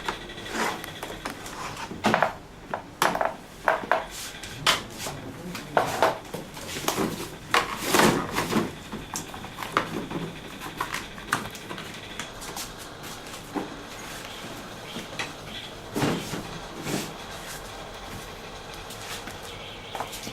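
Metal tools and fittings handled on a hard surface, with irregular clinks and knocks that come thick and fast in the first half and thin out later.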